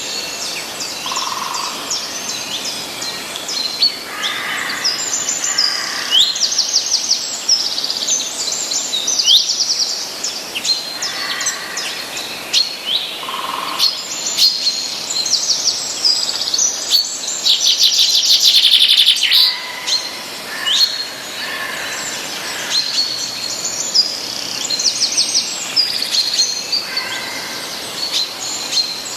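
Several songbirds singing and chirping, mostly quick downward-sliding chirps, with a dense fast trill about eighteen seconds in, over a steady background hiss.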